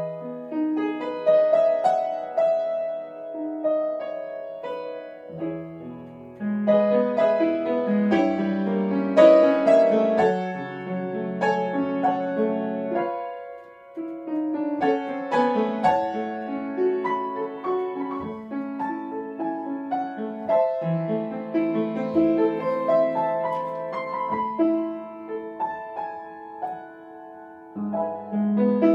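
Grand piano played solo: a melody over chords, with deeper bass notes joining about five seconds in and a brief pause about halfway through before the playing carries on.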